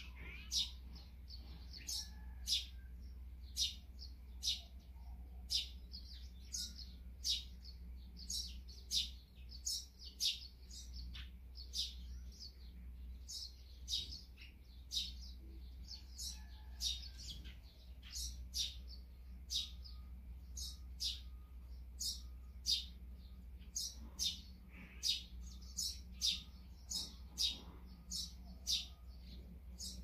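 Eurasian tree sparrows chirping: short, high single chirps repeated about one or two a second, over a steady low hum.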